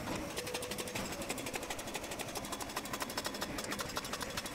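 Freshly overhauled hydraulic rock breaker on an excavator hammering rock with a rapid, even stream of blows, the excavator's engine running underneath. The hammer is working properly after its rebuild.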